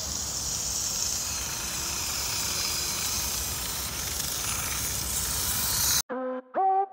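Steady hiss and low rumble of a small 3D-printed tracked robot rolling over rough paving slabs, mixed with outdoor noise. About six seconds in it cuts off abruptly and short electronic synth notes begin.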